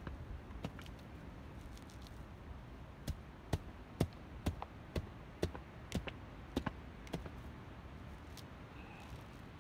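The back of an axe striking the forest floor in short, sharp knocks, digging a channel in the soil. The knocks come about two a second through the middle of the stretch, then stop.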